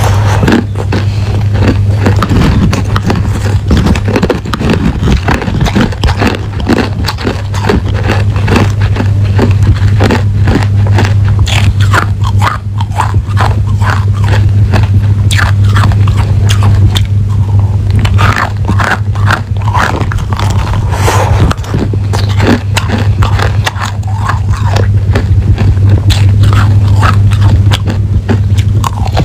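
Chunks of hard, clear crushed ice being bitten and chewed close to the microphone: a dense, irregular run of sharp crunches and cracks, with a steady low hum underneath.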